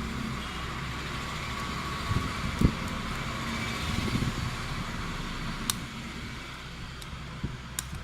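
Steady background noise with a low hum, a soft knock about two and a half seconds in, and a few small sharp clicks later on.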